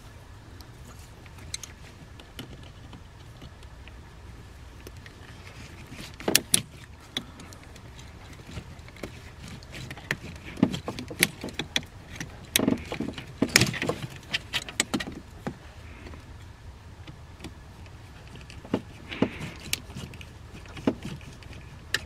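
Irregular metallic clicks and clinks of pliers squeezing and working spring-type coolant hose clamps off the hoses of an Audi 2.0T engine, with the sharpest clinks clustered in the middle.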